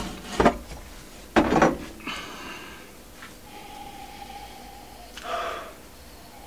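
A couple of knocks and handling noises as a glass and bottle are moved on a table, then a man sniffing a glass of whisky, with short breathy sounds.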